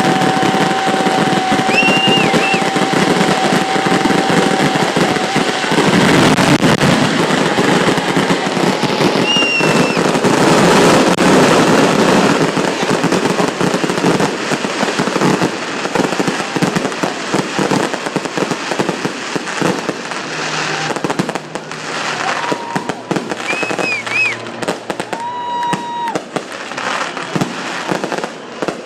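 Fireworks display: a dense, continuous run of bangs and crackling bursts that thins out to more separate bangs in the second half, with several whistles over it, one held for a few seconds at the start.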